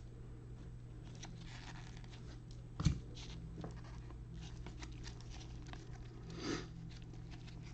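Trading cards being handled and flipped through: faint rustling and light clicks, with a knock about three seconds in and a brief rustle near the end, over a steady low electrical hum.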